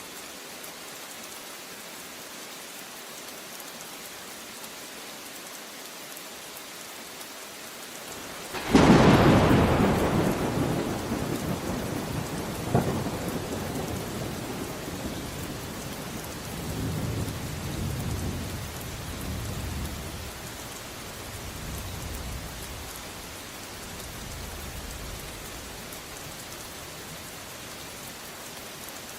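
Steady rain falling throughout. About nine seconds in, a sudden loud thunderclap breaks and rolls on as a long rumble, with a second sharp crack a few seconds later and further rumbles fading away before the end.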